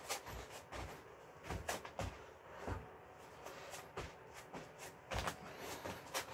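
Repeated thuds and scuffs of burpees on a foam exercise mat: hands slapping down, sneakers kicking back and landing, then the jump, in an uneven rhythm of knocks.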